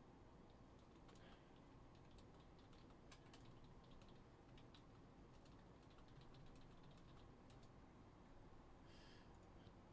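Faint typing on a computer keyboard: a run of quick, light key clicks over quiet room tone.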